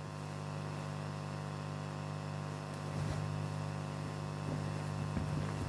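Steady electrical mains hum on a 1982 live-gig cassette recording, with a few faint knocks.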